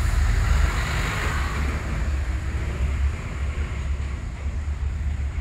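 A steady low rumble with an even hiss, with no clear single event.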